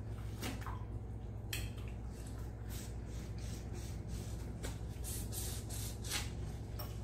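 Close-up mouth sounds of a person eating: wet chewing and lip smacks in irregular short clicks, over a steady low hum.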